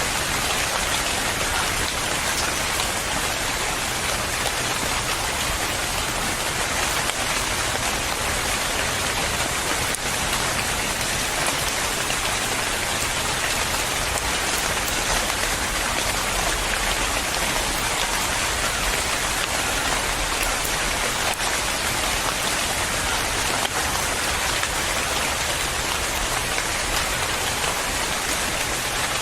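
Steady rain falling on a surface, a dense, even hiss of drops that does not change.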